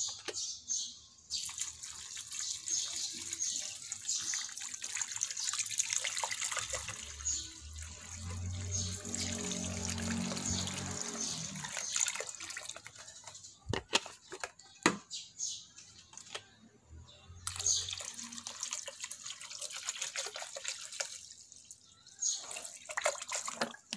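Water poured from a plastic bottle into an aluminium pot, splashing onto a whole chicken and filling the pot in two long pours. Two sharp knocks come between the pours.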